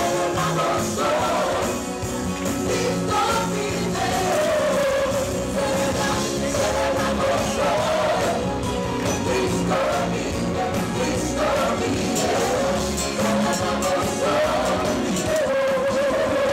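Live worship song: a group of singers on microphones singing together over a band with guitar and keyboard.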